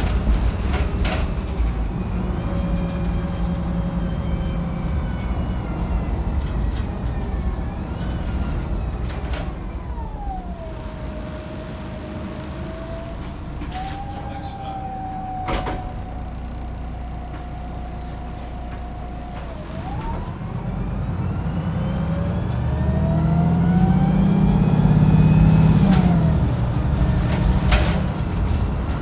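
Wright Pulsar 2 single-deck bus heard from on board, its engine rumbling under a drivetrain whine. The whine falls as the bus slows, holds steady for several seconds, then rises as it accelerates hard, loudest about 25 seconds in before a gear change drops the pitch. One sharp clunk about halfway through.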